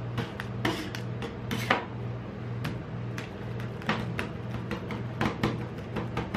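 Metal spatulas chopping and scraping ice cream on a frozen steel ice-cream-roll plate: quick, irregular clicks and scrapes, several a second, over a steady low hum.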